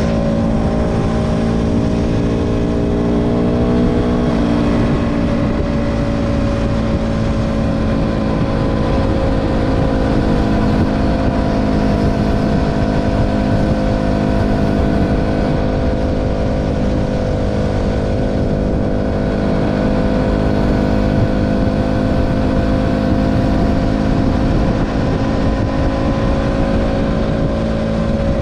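KTM Duke 200's single-cylinder four-stroke engine running at road speed under the rush of wind noise. Its pitch climbs slightly for the first few seconds, dips about four seconds in, then holds nearly steady.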